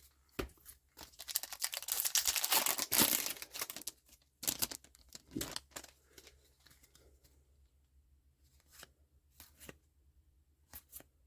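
A foil booster-pack wrapper being torn open and crinkling for about three seconds, followed by a few sharp clicks and light taps of cards being handled.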